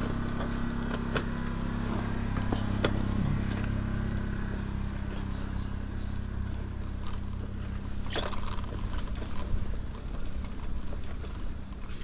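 Bicycle being ridden: a steady low rumble from the ride with scattered clicks and rattles, a sharper rattle about eight seconds in, and the rumble easing off near the end.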